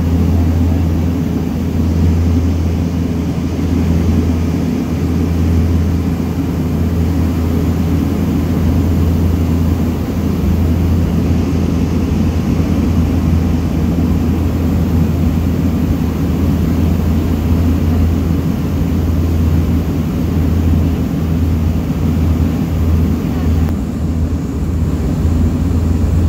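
Cabin noise of a de Havilland Canada DHC-6 Twin Otter descending on approach to land: its PT6A turboprop engines and propellers give a loud, steady drone with a deep hum, heard from inside the cabin beside the wing.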